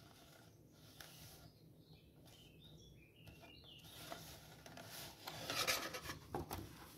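Sheet of thick cardstock rubbing and rustling under the hands as a glued flap is pressed down and the sheet is then lifted and handled, faint at first and loudest about five to six seconds in.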